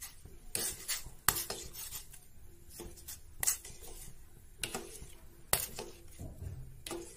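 Metal ladle clinking and scraping against a stainless steel pot while stirring cubed potatoes in water: a string of irregular, short metallic knocks with a little ringing.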